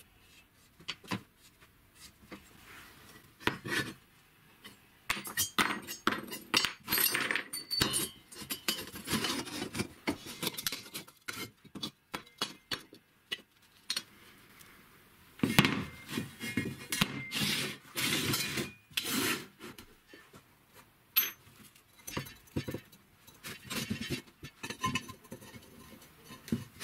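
Square steel tubing handled on a wooden workbench: irregular clinks and knocks as pieces are set down, with stretches of scraping as they slide across the bench.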